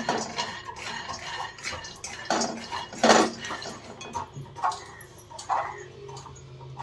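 Wooden spatula stirring peanuts being dry-roasted in a stainless-steel pan: the peanuts rattle and the spatula scrapes and knocks against the steel, loudest about three seconds in, then fewer sounds once the stirring stops.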